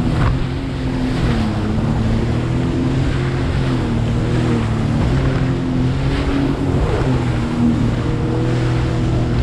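Sea-Doo Fish Pro personal watercraft running steadily at cruising speed, about 24 miles an hour. Its engine makes a steady drone that wavers slightly in pitch, over rushing water spray and wind on the microphone.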